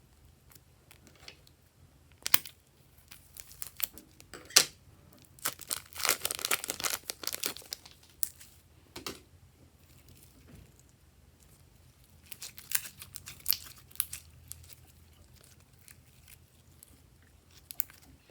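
Slime being worked by hand, with crackling, crinkly pops in clusters: a dense run in the middle and another about two thirds of the way through.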